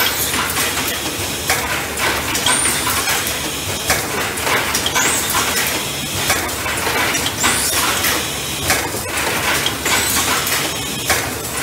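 Katahisa Auto Prestar automatic cup filling and sealing machine running in production: a steady mechanical clatter of clicks and clanks, with a short high hiss repeating about every two and a half seconds as it cycles.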